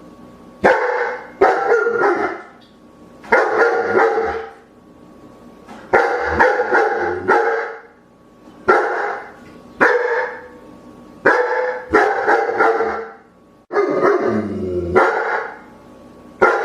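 A dog barking repeatedly: short, loud barks in runs of two or three, with pauses of about a second between the runs.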